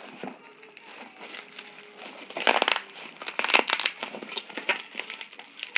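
Plastic bubble wrap crinkling and crackling as hands pull it open from around a product, in irregular bursts, loudest about two and a half and three and a half seconds in.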